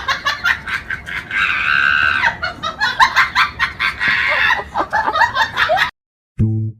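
A bird squawking and clucking in a rapid run of short calls, with one longer drawn-out squawk about a second in. The calls cut off about six seconds in.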